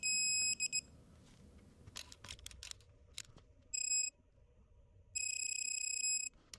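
Digital torque wrench beeping as the lug nuts are torqued. A steady electronic tone sounds at the start, then a few ratchet clicks, a short beep, and a long steady tone of about a second near the end. The steady tone is the signal that the set torque is reached.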